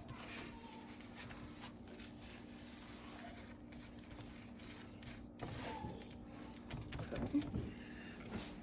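Faint rustling and light handling sounds of gloved hands rubbing seasoning into a raw roast, over a steady low hum.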